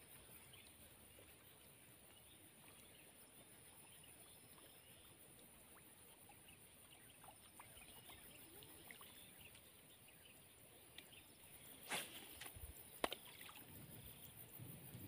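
Near silence: faint open-air ambience with a steady high-pitched tone and scattered faint chirps. Two sharp clicks come about a second apart near the end.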